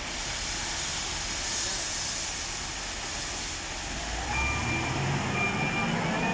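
Hindustan 2021E wheel loader's diesel engine running at a construction site, with a steady hissing rush. About four seconds in the engine note picks up and grows louder, with a rising whine and a thin high tone on top.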